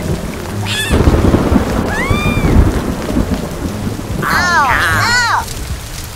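Steady rain with a continuous low thunder rumble. A few short high-pitched squeaky calls that rise and fall cut through, one about a second in, one about two seconds in, and several overlapping ones past the middle.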